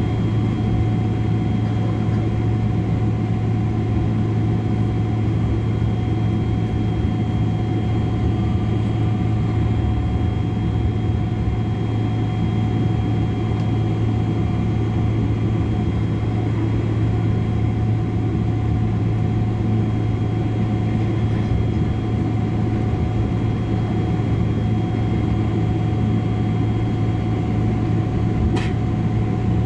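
Steady cabin hum inside a Boeing 777-300 on the ground with its engines running at low power, as during taxi, with a few steady tones above the low drone. A brief click comes near the end.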